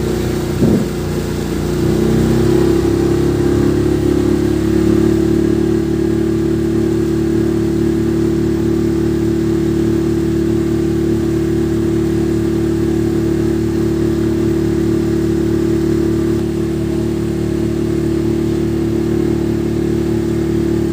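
Motorboat engine heard from on board, running steadily under way; it revs up briefly about a second in, then holds a constant pitch.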